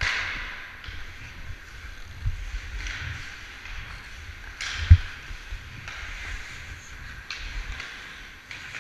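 Ice-skate blades scraping and carving the ice in repeated strides, over a low wind rumble on the microphone. One sharp knock about five seconds in.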